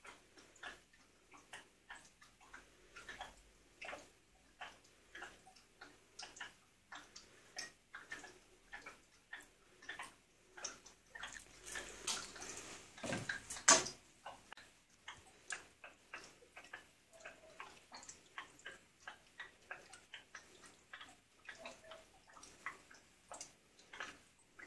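Jugs of fermenting wine popping: small irregular pops, a few a second, as fermentation gas escapes. About halfway there is a louder hissing stretch that ends in one sharp, loud pop.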